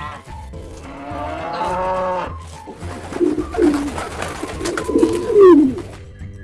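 Animal calls: one long drawn-out call, then several shorter calls that slide down in pitch.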